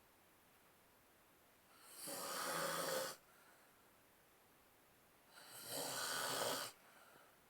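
Snoring: two long snores about four seconds apart, the first about two seconds in and the second in the second half, each lasting about a second and a half, with quiet breathing gaps between them.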